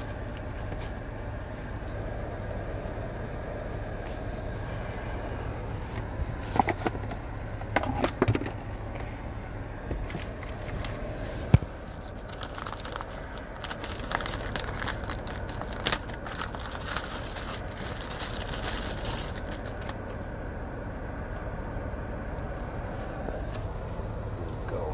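Thin plastic bag crinkling and rustling in bursts as sunglasses are unwrapped and handled, with a single sharp click about halfway through, over a steady low hum.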